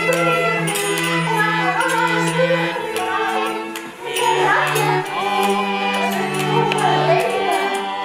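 Live acoustic ensemble music: long held low bowed notes from a cello under a melody with women's singing voices. The music dips briefly about halfway through before the next phrase begins.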